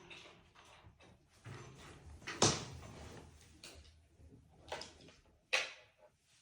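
Handling noises: a few sharp clicks and knocks, the loudest about two and a half seconds in, with rustling in between.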